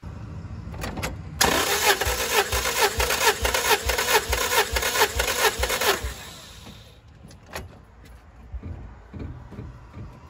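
Starter motor cranking a Toyota 2ZZ-GE four-cylinder engine with its spark plugs out and ignition and injectors disconnected, for a compression test: an even whir with a regular beat for about four and a half seconds, then it stops suddenly.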